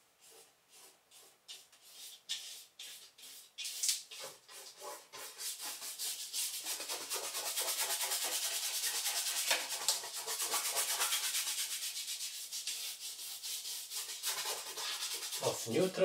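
A paintbrush scrubbing paint onto a canvas. Scattered short strokes come first, then from about four seconds in they grow into fast, almost continuous back-and-forth scrubbing.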